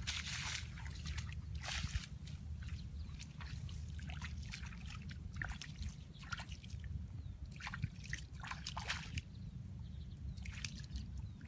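Water sloshing and splashing in short, irregular bursts, over a steady low rumble.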